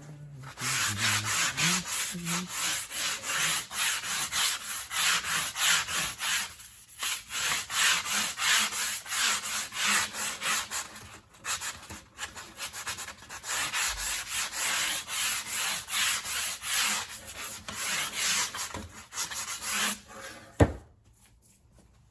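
PVC pipe being sanded with sandpaper in quick back-and-forth strokes, with a few short pauses. It ends with a single knock.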